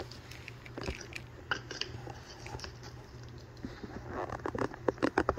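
Light clicks and taps of a small plastic toy being handled in a plastic bowl-shaped crib, with the rustle of a thin sheet being unfolded; the clicking and rustling grow busier about four seconds in.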